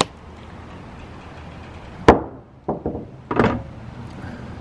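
Sharp knocks of a hand scraper striking and prying at a corroded underwater light fitting in a boat's hull. One loud knock comes about two seconds in, followed by a few quicker knocks over the next second and a half.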